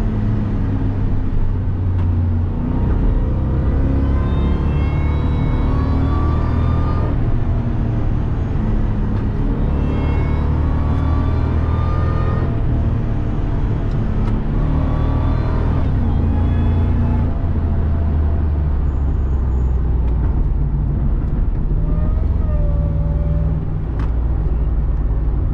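2002 Ford F-150 SVT Lightning's supercharged 5.4-litre V8 pulling hard under full throttle, its supercharger whining. The pitch rises over several seconds, drops back at each gear change, and rises again, several times over.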